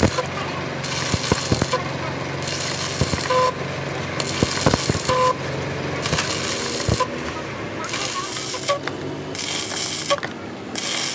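Stick welding on a truck's rear axle housing: the arc crackles and spits with many sharp pops, its hiss swelling and dropping every second or so over a steady low hum.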